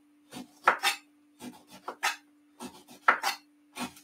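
Kitchen knife cutting the peel off a lemon on a wooden chopping board: a run of short, sharp cutting strokes in uneven groups, about a dozen in four seconds.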